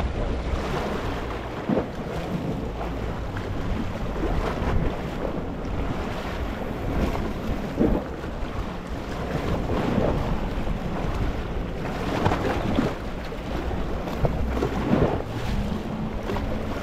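Gentle sea waves lapping over a rocky shore: a steady wash of surf with a short splash every two to three seconds.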